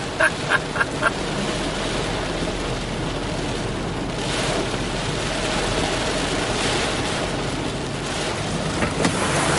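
Floodwater rushing and splashing against a car driving through deep standing water, as a wave from a passing truck washes over it. A steady wash of water noise that swells twice about halfway through.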